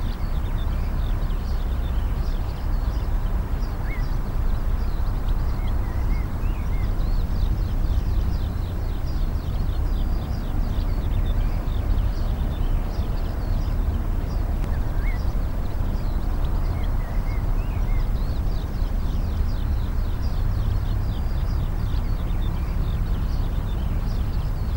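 Outdoor ambience of many small birds chirping and twittering over a steady low rumble, with a few clear rising call notes standing out now and then.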